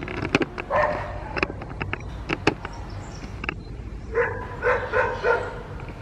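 Dogs barking: a scatter of short, sharp barks in the first two and a half seconds, then a quick run of about four barks around four seconds in.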